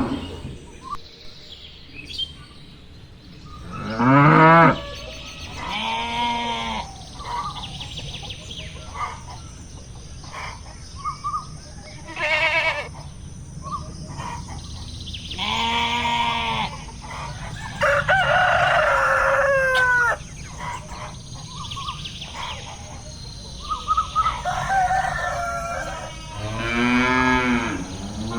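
Farm animal sounds: cattle mooing several times and a rooster crowing, with chickens clucking in between.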